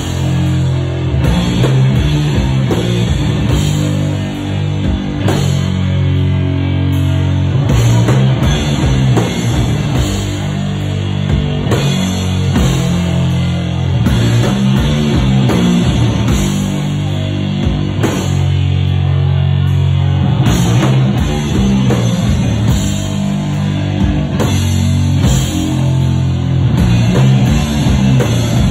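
Live sludge metal band playing loud: heavy distorted guitar and bass riffs, with long held low chords, over a drum kit with crashing cymbals, and no singing.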